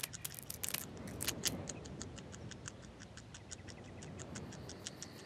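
A rapid run of sharp clicks, uneven at first, then settling into an even ticking of about six a second that slowly fades.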